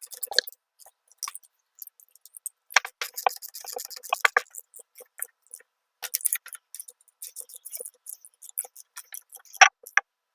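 Ratchet wrench tightening a lock nut onto a bolt, with two bursts of rapid clicking and scattered ticks between them, then one sharp loud click near the end.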